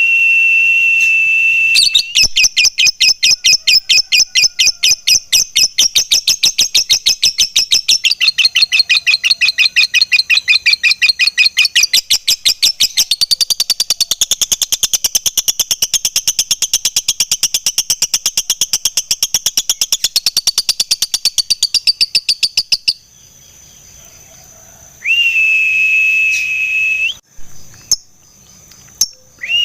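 Lovebird singing: a held whistle, then a long, rapid chattering trill of evenly repeated notes that runs about twenty seconds before stopping abruptly (the 'ngekek panjang' prized in fighter lovebirds). After a short pause come another held whistle, a few clicks and a final whistle.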